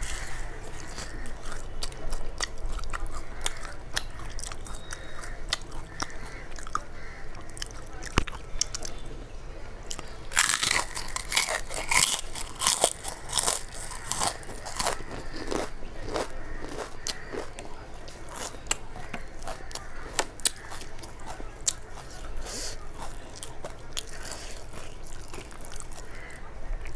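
Close-up mouth sounds of a person eating by hand: biting and chewing crisp fried pakoras, with a run of loud crunching from about ten to sixteen seconds in, and soft chewing and clicks elsewhere.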